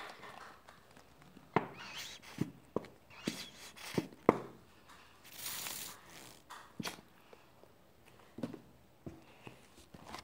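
Handling noise from a ridged white plastic container gripped and moved right up against the microphone: a string of irregular sharp knocks and clicks, with a brief hiss near the middle.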